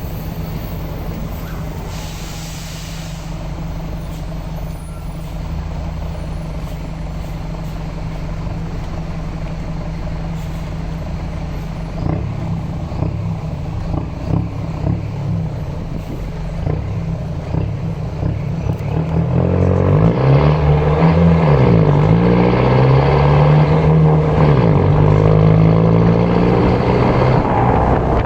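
Mercedes-Benz LO 916 bus's OM924LA four-cylinder turbodiesel running steadily at idle, with a brief hiss about two seconds in. From about twenty seconds in it gets louder as the engine speed rises and falls several times.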